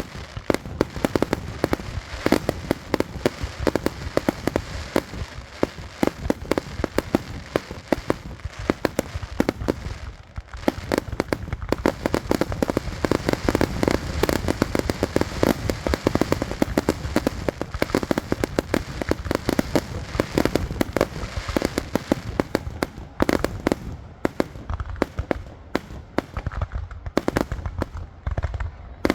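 Fireworks show: a rapid, dense run of bangs and crackles, many per second, easing briefly about ten seconds in and again near the end.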